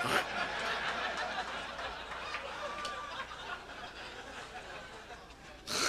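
Audience laughing after a punchline, the laughter slowly dying away. A short loud burst comes near the end.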